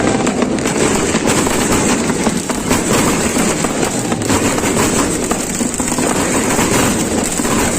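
Fireworks and firecrackers going off in a dense, continuous crackle of many overlapping small bangs, with no let-up.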